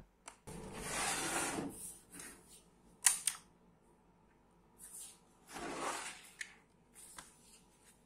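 Plastic handling noises as a Dell laptop's battery release latches are slid and the battery pack is pulled from its bay: a scraping slide about a second in, a sharp click about three seconds in, then more scraping and a few light clicks.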